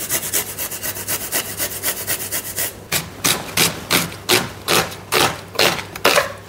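A spatula scraping against a pan as noodles with sauces are stirred and tossed. It goes in rhythmic strokes, quick and close together at first, then settling to about three strokes a second.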